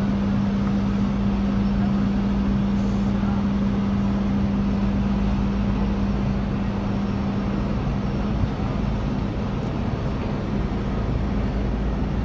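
Large engine running steadily: a constant low hum over an even wash of mechanical noise.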